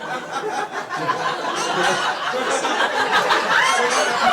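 Several people laughing and snickering together, with some indistinct chatter.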